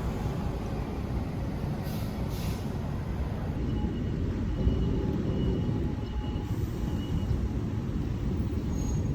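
Steady low rumble of a passenger train running, heard from inside the carriage, with a faint high whine coming and going around the middle.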